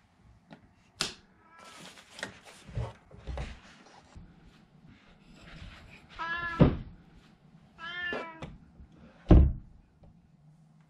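A door clicks and knocks as it is handled, then a calico cat meows twice, the calls a couple of seconds apart. A short, loud thump comes about a second after the second meow.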